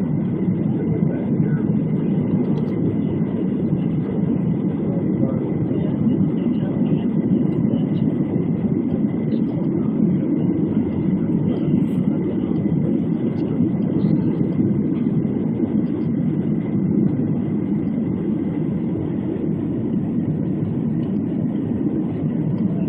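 Airliner cabin noise on descent: a steady, even roar of the engines and rushing air heard from inside the cabin, with a faint steady whine above it.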